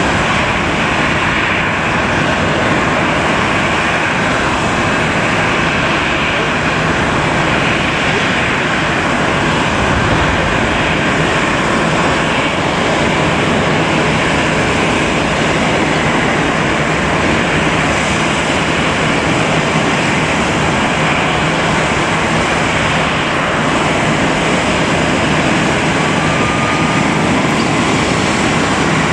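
Loud, steady noise of airliner jet engines running at an airport, unchanging in level throughout, with a brief faint whistle near the end.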